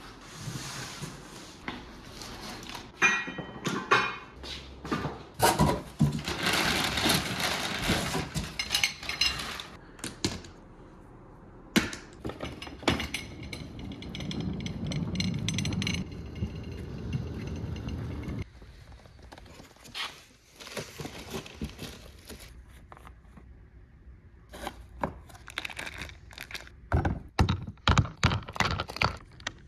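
Knocks, thunks and rattles of boxed engine parts being handled and set on a rolling steel utility cart, with a low rolling rumble for a couple of seconds as the loaded cart is pushed. Near the end, a quick run of sharp clicks from handling parts and tools on a workbench.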